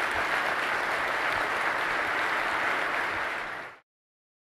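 Conference audience applauding at the close of a talk, a steady dense clapping that cuts off suddenly near the end.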